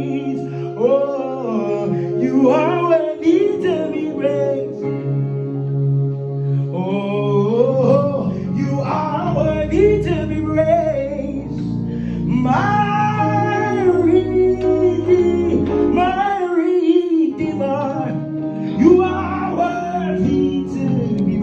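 Live worship music: a solo voice sings long, sliding, ornamented phrases over sustained instrumental backing.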